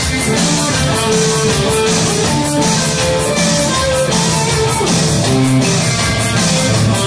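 Live rock band playing: electric guitar over a steady beat.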